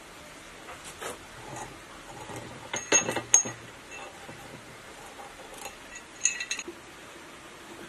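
Metal clinks and light taps as the steel end cover and rotor shaft of a three-phase sewage pump motor are worked by hand in a bench vise: a few sharp, ringing clinks about three seconds in and another short group about six seconds in, with quieter handling noise between.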